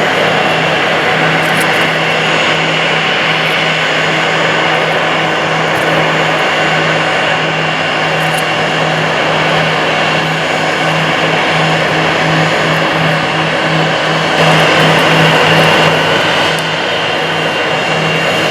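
Aircraft engines running loudly and steadily, with a steady low hum and a high whine. The sound swells for a couple of seconds near the end.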